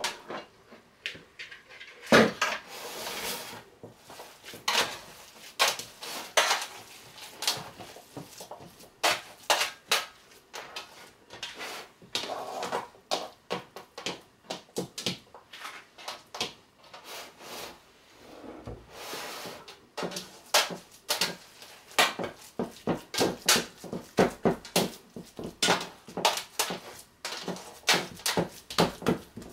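Hands pressing and patting raw ground-beef meatloaf mixture into an enamelled roasting pan: a run of short, soft slaps and squelches, coming faster in the second half. One louder knock sounds about two seconds in as the mixture is tipped out of the plastic bowl.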